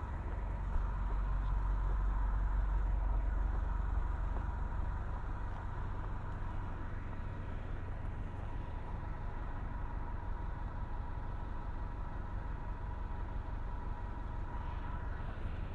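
Diesel transit bus idling at a stop: a steady low engine rumble with a thin steady whine over it.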